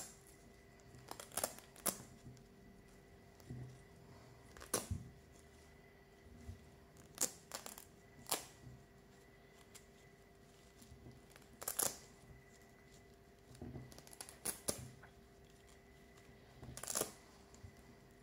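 Hook-and-loop (Velcro) fasteners ripping apart as felt circles are peeled off a felt quiet-book page: about ten short, sharp rasps, spaced irregularly.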